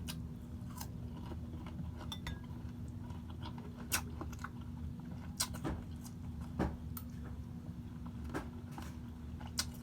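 Close-up eating sounds: chewing and crunching food, with scattered sharp clicks at irregular intervals over a steady low hum.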